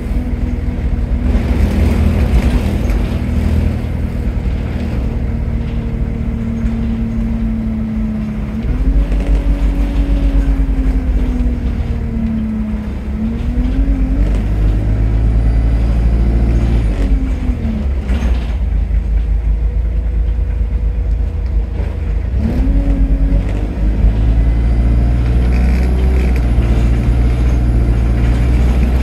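Engine of the Arriva London bus ENX17 heard on board: it runs at a steady pitch for the first several seconds, then pulls away and accelerates three times, its pitch rising and dropping back as it changes gear, over a heavy low rumble.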